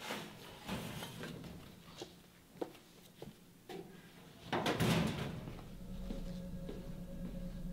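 Scattered light knocks and clicks, then a louder thud about four and a half seconds in, after which a low steady hum sets in.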